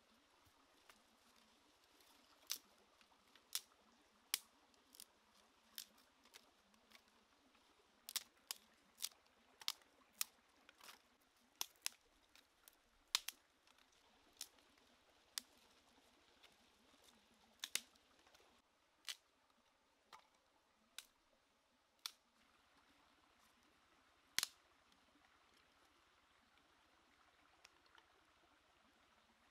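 Sharp, irregular snaps and clicks of dry wood and twigs, one or two a second, scattered over about twenty seconds, with the loudest about halfway through and little else but faint background between them.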